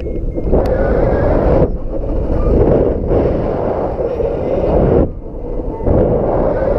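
Strong wind buffeting the microphone in loud gusts that swell and break every second or two, with a brief lull about five seconds in.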